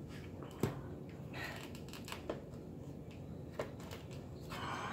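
Quiet handling noises: hands moving a cardboard pizza box on a table, with a few separate light clicks and a short rustle.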